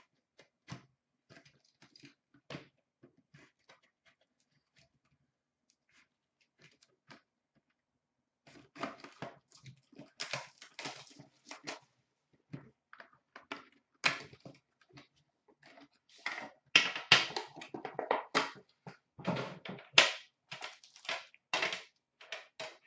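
A sealed hockey card box being opened by hand: a few light clicks and scrapes as the wrap is cut, then, from about eight seconds in, a long run of crinkling, tearing and rustling of cardboard and plastic packaging as the box is opened and the pack pulled out.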